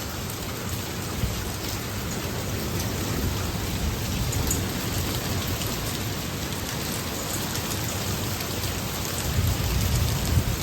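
Heavy rain with pea-size hail pelting down, heard as a dense steady hiss with scattered faint ticks. A low rumble runs under it and swells near the end.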